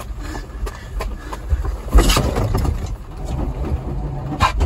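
GMC S15 pickup rolling as it is push-started in the rain, with a low rumble, irregular knocks and clunks as the driver jumps in, and a strong knock about two seconds in. Near the end the rumble grows as the clutch is popped and the engine is turned over to bump-start it.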